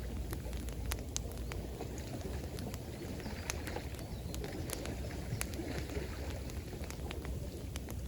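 Campfire crackling, with frequent irregular sharp pops, over a steady low rush of flowing water.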